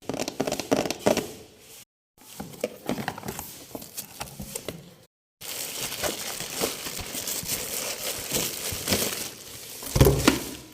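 Crinkling and crackling clicks from a wax heater machine being opened and handled, in short segments cut off abruptly by edits. There is a louder thump about ten seconds in.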